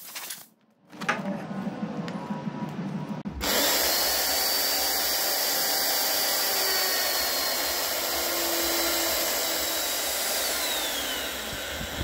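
Magnetic drill with an annular cutter boring through thick steel plate: it starts suddenly about three and a half seconds in and runs steadily with a thin high whine, which drops in pitch near the end. Lighter handling sounds come before it.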